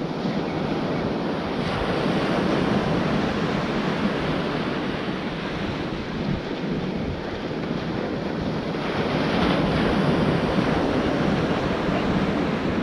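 Small waves breaking and washing up the beach, swelling louder twice, with wind buffeting the microphone.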